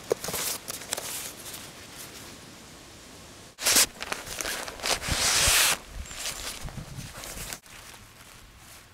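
Footsteps and rustling in uneven bursts. The loudest is a longer rustle about five seconds in, and the sound breaks off abruptly about three and a half and seven and a half seconds in.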